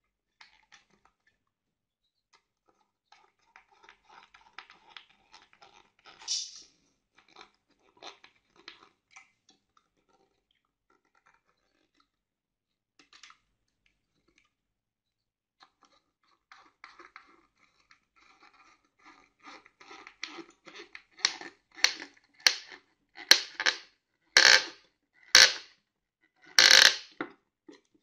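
Hand screwdriver driving a screw into a wooden board: light scraping and handling at first, then a loud crunching creak with each turn of the screwdriver, about one a second, over the last seven seconds.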